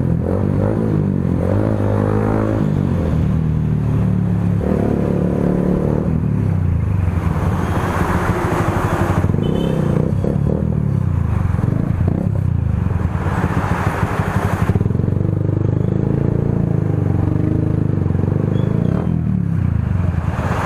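Motorcycle engine with an aftermarket muffler running and being revved, its note rising and falling, with two louder blips of the throttle about eight and fourteen seconds in.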